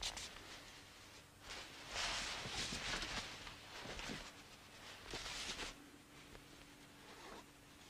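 Rustling and shuffling movement noises as a dancer in a kimono moves and bends: irregular bursts of hiss, the longest lasting about two seconds from around a second and a half in, with shorter ones about four and five seconds in.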